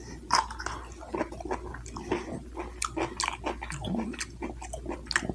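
A person chewing food with the mouth open: irregular wet smacks and clicks.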